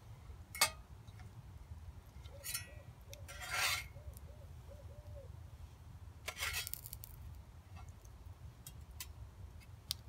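A spatula scraping and rubbing against a frying pan over campfire embers as toast is turned, in several short scrapes. A sharp click comes about half a second in.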